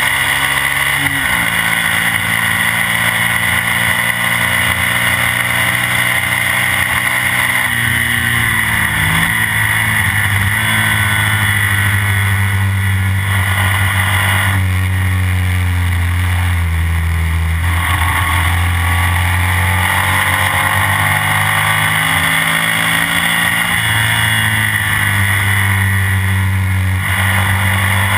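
Classic BMW racing sidecar outfit's engine running hard at track speed, its pitch dropping and climbing several times through the gear changes, with steady wind and road rush on the low-mounted camera.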